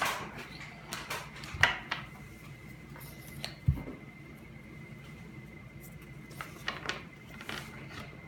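Pokémon trading cards being handled and flipped through by hand: a few scattered card snaps and light taps, with a dull thump a little before the middle.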